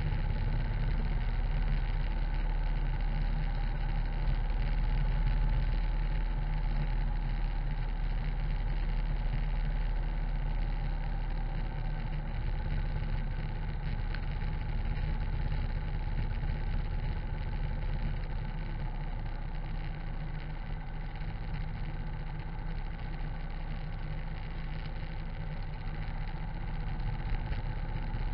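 Harley-Davidson V-twin engine running steadily at cruising speed, with tyre hiss from the wet asphalt. The loudness eases slightly about two-thirds of the way through.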